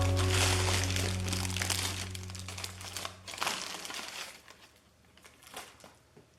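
Background music with held low notes fading out under a dense crackling, crinkling noise, which thins to a few scattered crackles in the last couple of seconds as everything dies away.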